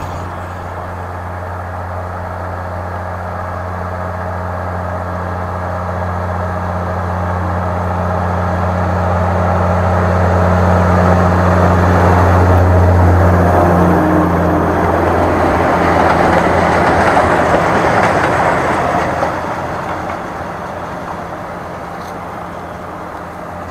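Engine hum of a vehicle passing by: a steady low drone with a rushing noise that grows louder, is loudest about two-thirds of the way through, then fades.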